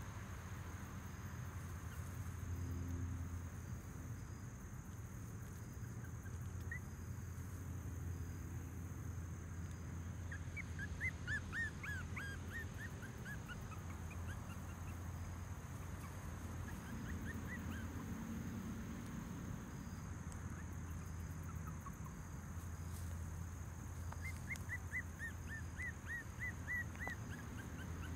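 Jack Russell–Chihuahua mix puppy whimpering in short, high-pitched cries, coming in quick runs about ten seconds in and again near the end, over a steady low hum.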